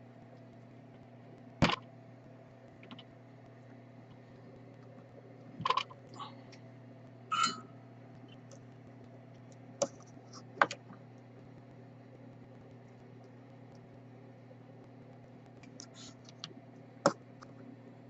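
Scattered sharp clicks and taps of small tools handled at a soldering bench, about six over the stretch, over a steady low hum.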